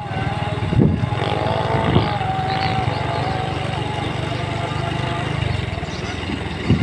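Motorcycle engine running at a steady cruise, heard from the rider's seat while riding, with a few brief gusts of wind noise on the microphone.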